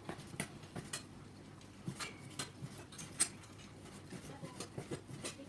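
Irregular light clicks and metallic taps, a few a second, from a trampoline's metal frame and parts being handled during assembly.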